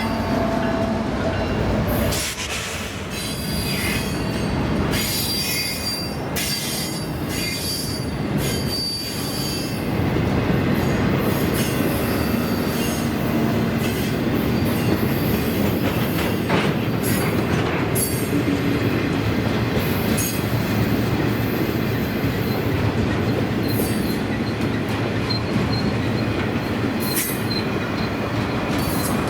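Freight train of container cars rolling past, with steel wheels squealing against the rails at times and clicking over rail joints.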